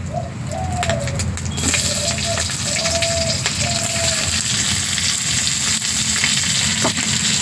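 Sliced onions dropped into hot oil in a wok, sizzling. The frying hiss rises sharply about a second and a half in as the onions hit the oil, then carries on steadily.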